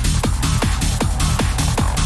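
Hard house dance music from a DJ mix: a fast, steady beat of deep bass hits that fall in pitch, with sharp hi-hat and clap hits on top.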